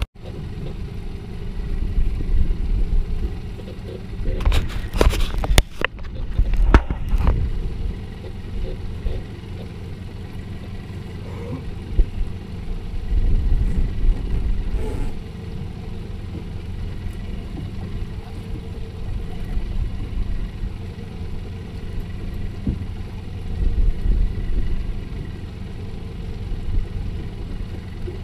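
Boat motor idling with a steady low rumble. A few sharp knocks and rustles come about five to seven seconds in.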